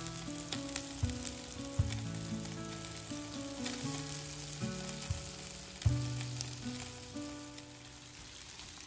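Bacon-wrapped sea scallops sizzling on a grill mat over a gas grill, the fat hissing with scattered small pops. Background music with a slow melody plays over it.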